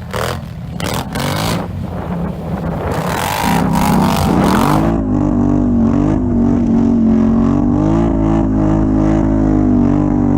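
ATV engine running under throttle, rising in pitch about four seconds in, then holding steady at high revs.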